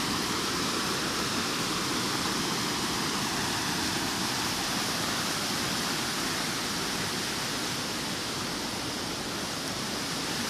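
Fast-flowing river water rushing steadily, a strong current.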